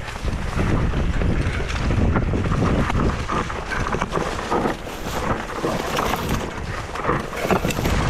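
Wind buffeting the microphone and the rumble and clatter of an Ibis Mojo HD4 full-suspension mountain bike rolling fast over a rough dirt singletrack, with many short rattles as it hits bumps.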